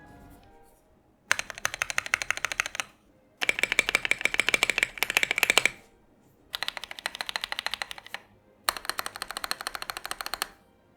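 Typing on a Tofu 65 mechanical keyboard fitted with Akko CS Jelly White linear switches and XDA-profile keycaps: four bursts of fast keystrokes with short pauses between them.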